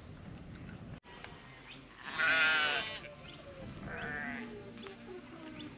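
Sheep bleating: one long, loud, wavering bleat about two seconds in, then a second, softer bleat about a second later.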